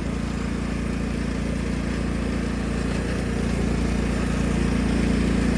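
1999 Cub Cadet HDS 2135 riding mower's engine running steadily at idle. It grows a little louder over the second half.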